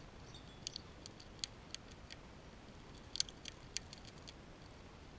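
A fox squirrel gnawing and crunching a nut held in its paws close to the microphone: a scatter of sharp, irregular crunches and clicks, the loudest about three seconds in.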